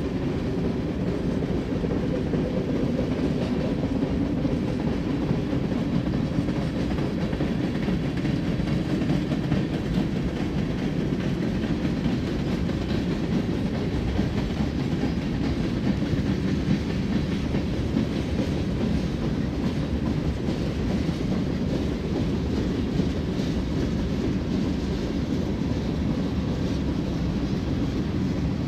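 Freight cars of a long BNSF mixed freight train rolling past: a steady rumble and clatter of steel wheels on the rails.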